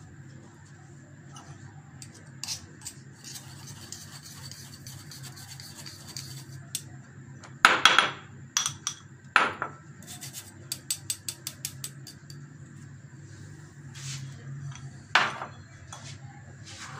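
Gram flour being sifted through a metal mesh sieve: a soft dry rubbing as the flour is worked through the mesh, broken by a few sharp knocks and a quick run of light taps as the sieve is struck to shake the flour through.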